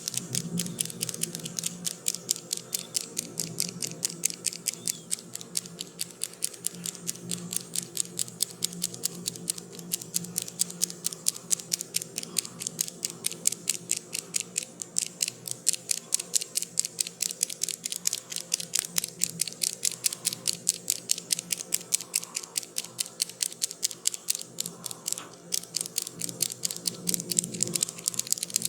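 Rapid, even clicking, about five clicks a second, with a brief pause near the end, over a steady low musical layer.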